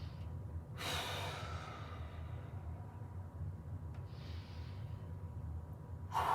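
A man's deep exercise breathing: a strong, breathy exhale about a second in, a softer breath around four seconds, and another strong exhale near the end, over a steady low hum.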